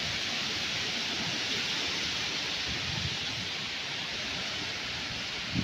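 Heavy downpour and strong wind of a derecho thunderstorm, a steady rushing hiss of rain and thrashing trees, with one short low thump right at the end.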